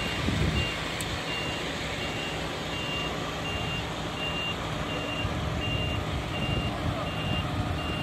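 A truck's reversing alarm beeping steadily, a single high beep about three times every two seconds, over the low, steady running of the truck's diesel engine.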